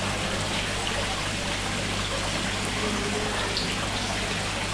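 Steady running and bubbling water with a constant low pump hum, typical of the aerated tanks that hold live shrimp and fish at a seafood stall.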